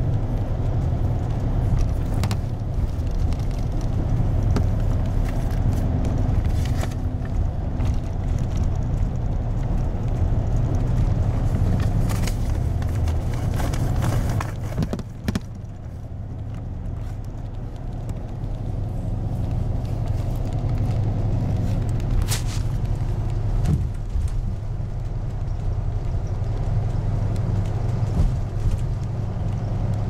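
Inside a moving bus: a steady low engine drone and road rumble, with occasional light rattles. The noise drops for a few seconds about halfway through, then builds back up.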